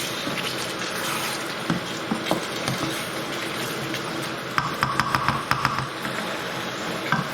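Chicken in curry base gravy sizzling in a pan while being stirred, with the spoon scraping and clicking against the pan, including a quick run of clicks about five seconds in.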